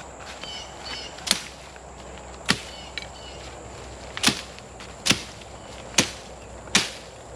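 A Fiskars blade chopping into a thick vine: six sharp chops at uneven spacing, roughly a second apart.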